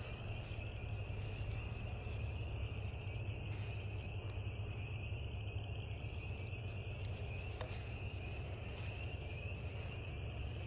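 Crickets chirping in a steady, continuous high trill over a low steady hum, with one faint click about seven and a half seconds in.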